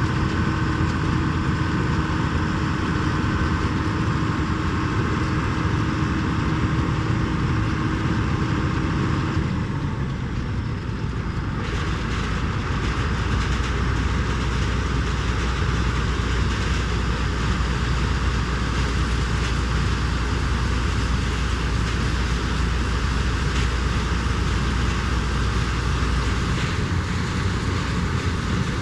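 Heavy farm harvest machinery running steadily with a low engine drone. About ten seconds in, a steady tone drops out, and soon after the sound turns brighter and noisier.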